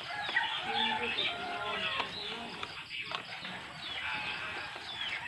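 Chickens clucking and birds chirping in the background, many short rising and falling calls, over faint scraping and tapping of a fork stirring pancake batter in a bowl.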